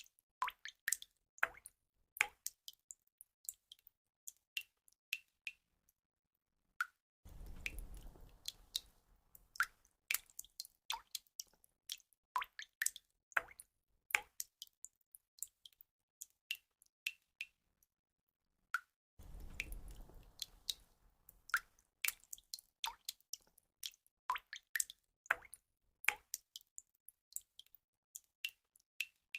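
Water drops falling and dripping irregularly, several a second, each a short plink at a varying pitch, with a couple of brief pauses. Twice, about seven and nineteen seconds in, a low rumble runs under the drops for two to three seconds.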